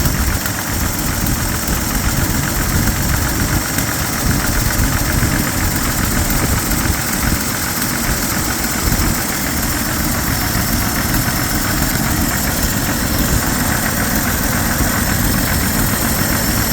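1970 Chevrolet C10 pickup engine idling steadily with a distinct knocking, which the owner takes for worn connecting-rod bearings around the second cylinder.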